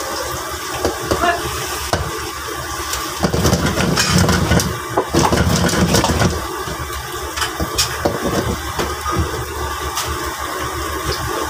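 Steady roar of a gas stove burner under a pan of chili crab simmering in its sauce, with a wooden spatula scraping and knocking in the pan now and then, busiest from about three to six seconds in.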